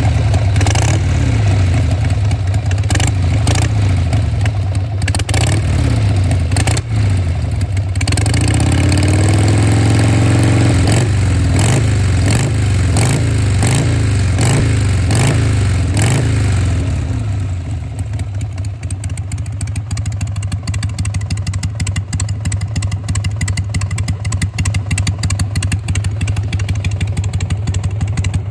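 Carbureted, air-cooled OHV V-twin of a 2002 Harley-Davidson Sportster 883 (rigid-mount XLH883) with a dry exhaust note. It is revved with a run of throttle blips, the pitch rising and falling, through the first half or so, then drops back to a steady idle about two thirds of the way through.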